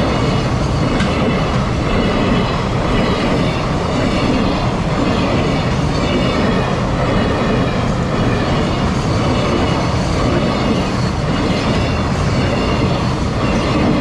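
A freight train of container flatcars rolling past close by at speed, a steady loud rumble and rattle of steel wheels on the rails that runs on without a break.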